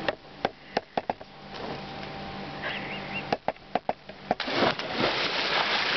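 A string of sharp knocks, then about four and a half seconds in a loud splash as a person goes into a swimming pool, with water rushing and churning after it. A short bird chirp sounds near the middle.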